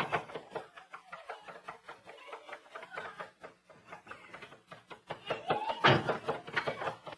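A large wicker clothes hamper being shoved and swung about, with crackly creaking and scuffing, and a louder knock about six seconds in.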